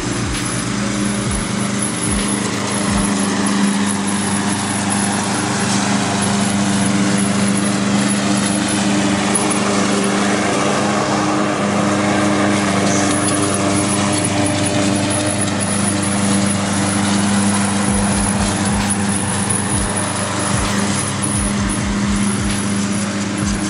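Small engine of a walk-behind rotary lawn mower running steadily under load while cutting grass, its tone shifting as it passes close by about halfway through.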